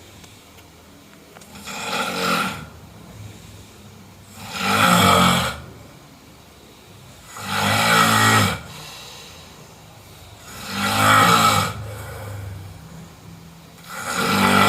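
A person snoring in a steady rhythm: five snores about three seconds apart, each lasting about a second, with quieter stretches between them. The first snore is softer than the others.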